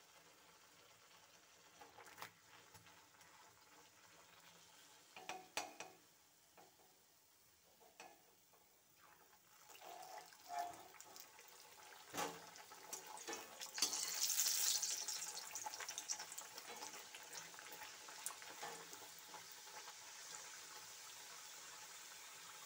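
Radhaballavi (stuffed dough puris) deep-frying in hot oil in a kadai: a soft sizzle with a few knocks of utensils. Past the halfway mark a fresh one goes into the oil and the sizzle jumps to a strong hiss, then slowly eases off.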